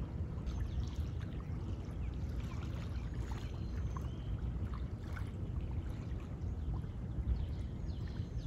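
Shoreline ambience: a steady low rumble of wind and gentle water on calm bay shallows, with faint, short bird chirps scattered through.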